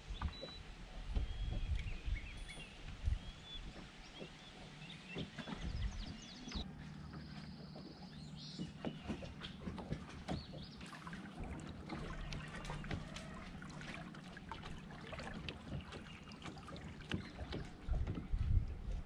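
Water lapping against the hull of a bass boat, with scattered light knocks and clicks and a low, uneven rumble underneath.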